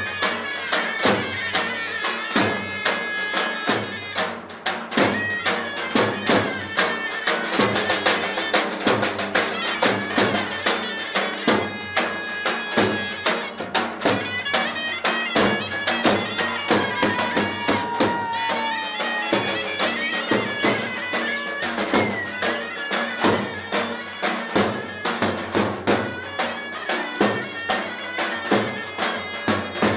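Loud traditional folk dance music: a reedy wind instrument carries the melody over a steady, fast drum beat.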